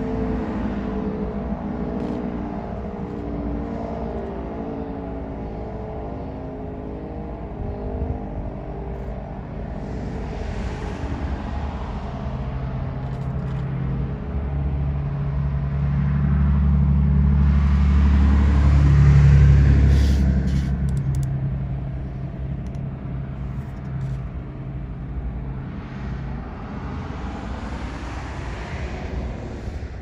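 The tail of a Sentry 16V1T-B rotating tornado siren, its tone pulsing as the horns sweep round, fades out over the first few seconds. Road traffic follows: cars passing, and a vehicle engine humming steadily and growing loudest about two-thirds of the way in.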